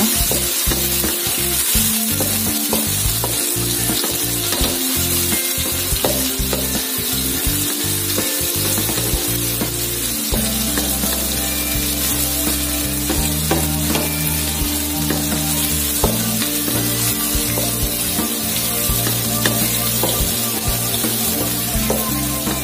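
Sliced shallots, garlic and chilies sizzling in hot oil in an aluminium wok as they are sautéed until fragrant, with a steady hiss and the small scrapes and taps of a spatula stirring them against the pan.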